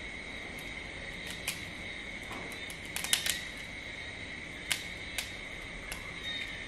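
Cooked crab shell being cracked and broken apart by hand: a handful of sharp cracks, the loudest cluster about halfway through, over a steady high-pitched drone.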